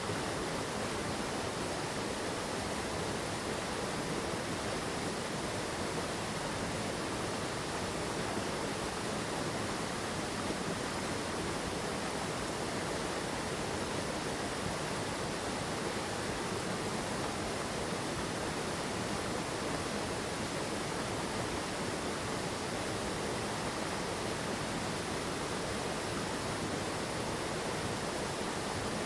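Steady rush of water in a rocky mountain stream, its flow and falls making an even, unbroken roar.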